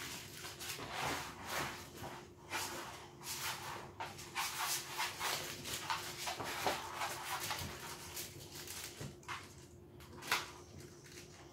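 Boxer dog playing with a toy in its mouth: irregular chewing, crackling and rustling noises from the toy and its cushion bed, with a louder sharp noise about ten seconds in.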